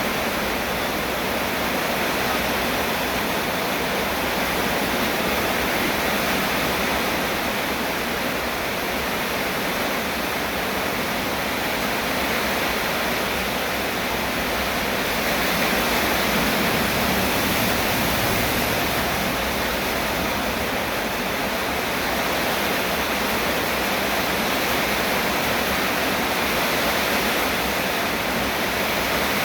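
Steady heavy rain, a continuous even hiss with no breaks or single drops standing out.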